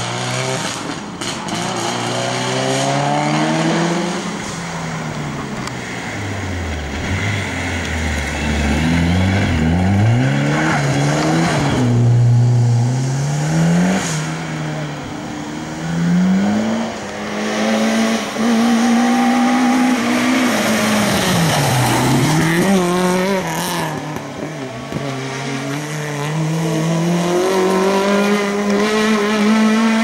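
Rally car engines revving hard as the cars drive through bends one after another, the pitch climbing through the gears and dropping sharply on lifts and downshifts.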